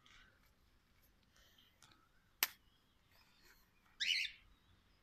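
Sun conure giving a short harsh squawk about four seconds in, with faint chirps before it. A single sharp click comes a little past halfway.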